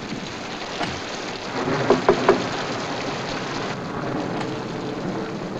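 Heavy rain falling steadily, with three short, sharp sounds in quick succession about two seconds in.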